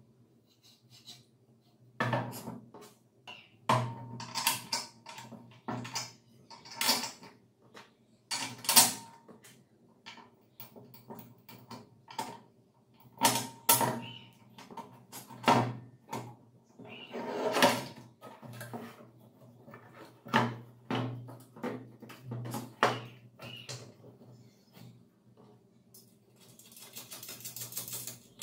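Parts of an angle grinder stand being handled and fitted together on a table: irregular metal clicks, knocks and clatters, some with a short ring. A scraping rustle near the end as the stand's base is lifted and turned, over a faint steady hum.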